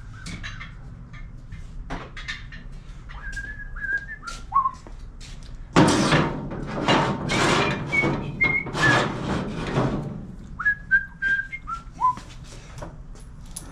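A person whistling short phrases of falling notes. In the middle comes a loud stretch of clattering and knocking from the work.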